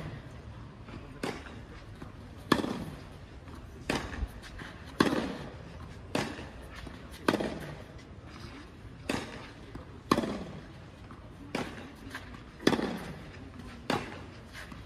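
Tennis ball struck back and forth with rackets in a fast baseline rally on a clay court. About a dozen sharp hits come roughly a second apart, each with a short echo.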